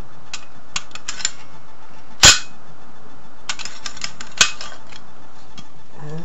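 Sharp clicks and knocks from handling the parts of an airsoft Thompson replica during repair: a run of small clicks, one loud knock about two seconds in, a cluster of clicks, and another sharp knock past the four-second mark.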